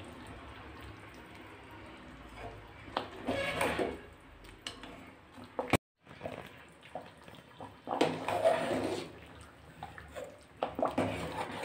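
Thick chicken curry gravy being stirred and ladled in a pot: wet sloshing and slurping in a few louder bursts, with a brief gap near the middle.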